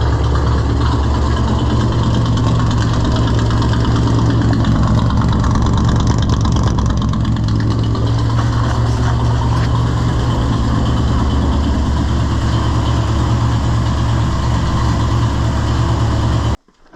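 1983 GMC K2500 pickup's carbureted gasoline engine idling steadily, just started and breathing through its newly finished exhaust; the idle is kind of high and the carburetor still needs tuning. The sound stops abruptly near the end.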